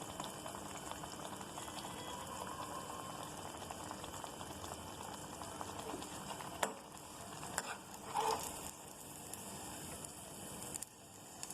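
Paniyaram batter deep-frying in hot oil in a small kadai: a steady bubbling sizzle, with a few faint utensil clicks and one louder clatter about eight seconds in. The sizzle drops away shortly before the end.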